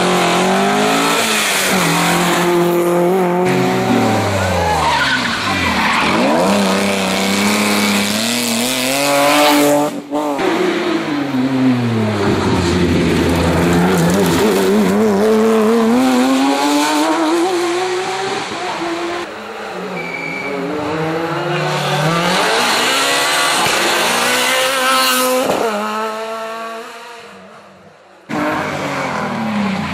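Rally car engines at full throttle, revs climbing and dropping through gear changes as the cars pass, with some tyre squeal. The sound cuts abruptly from one car to the next about ten seconds in and again near the end.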